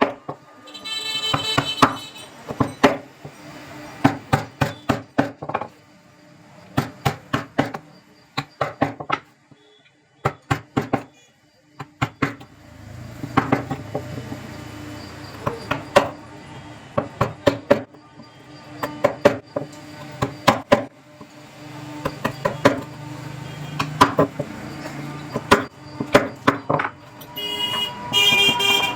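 Hammering on wood: bursts of several quick blows every second or two, over a steady low hum.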